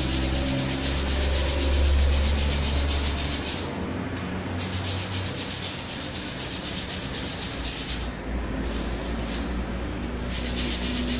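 Dry dal rattling and rustling in a steel sieve as it is shaken back and forth over a stainless-steel bowl to sift out dust and grit: a continuous gritty rubbing sound.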